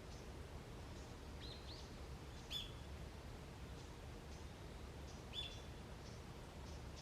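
Wild birds calling in a forest: a few short, high, sharp calls, the loudest about two and a half seconds in and again about five and a half seconds in, with a pair of quick rising notes just before the first, over a steady low background rumble.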